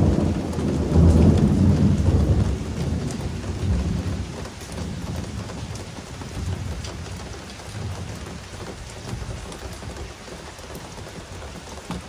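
A long roll of thunder, loudest in the first couple of seconds and fading away by about halfway, over steady rainfall with scattered drops ticking.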